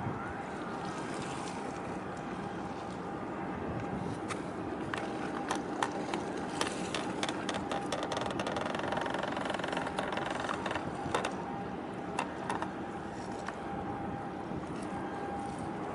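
A boat engine running steadily on the water, with wind on the microphone and water wash; a run of sharp clicks and knocks through the middle.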